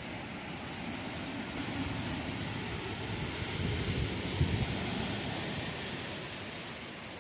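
Hurricane wind and rain: a steady hiss of rain under a rumbling gust of wind that swells to a peak about four seconds in and then eases off.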